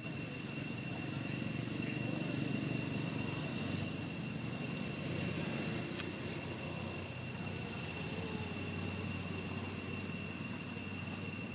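A distant engine drone, steady and low, swelling a little about two seconds in and easing after, with a thin steady high-pitched whine over it.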